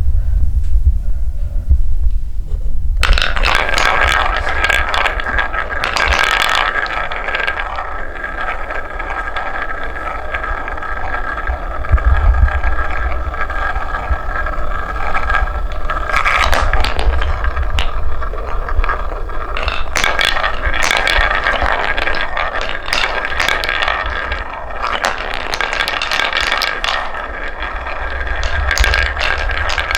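Wooden balls rolling and clattering down a wooden marble-run track: a dense run of rolling with many small clicks and knocks, starting about three seconds in, over a steady low rumble.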